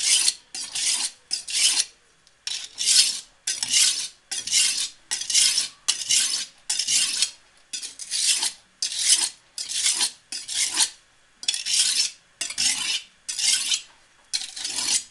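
Steel kitchen-knife blade stroked back and forth on an oiled ordinary house brick, a gritty rasping scrape about twice a second with brief pauses near 2 s and 11 s, grinding the edge down after a burr has been raised.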